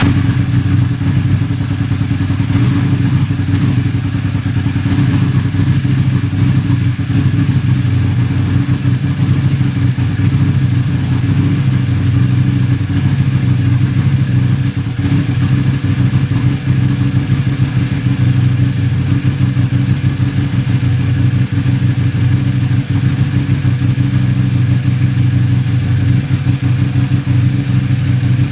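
Buell 1125R motorcycle's 1125 cc V-twin engine idling steadily, with an idle the owner calls rough.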